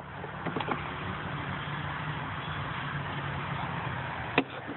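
Steady low hum of an idling engine, with a few light clicks about half a second in and a sharp click near the end.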